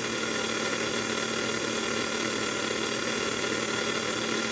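Small electric motor of a rebuilt Mega G slot car running steadily at speed on new brushes that still need breaking in.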